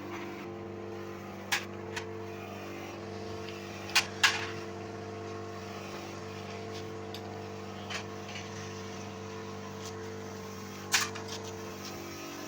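A machine running with a steady, even hum, with a few sharp metallic clicks and knocks, two close together about four seconds in.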